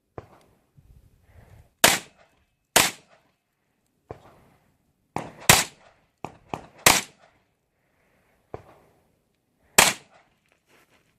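A string of gunshots fired one at a time at irregular intervals over several seconds. Five of the shots are loudest, with fainter reports in between.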